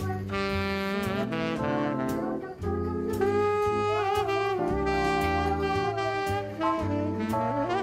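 Instrumental jazz background music: a horn melody over bass notes and a steady beat.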